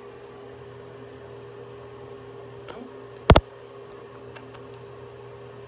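A steady low electrical or fan-like hum, with one sharp knock, a doubled tap, a little over three seconds in.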